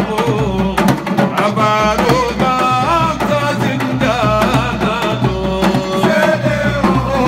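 A man singing a religious praise chant into a microphone, his voice wavering and ornamented, over rapid hand-drum strokes.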